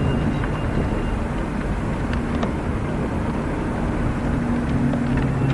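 Car engine and road noise heard from inside the moving car's cabin: a steady drone with a low hum.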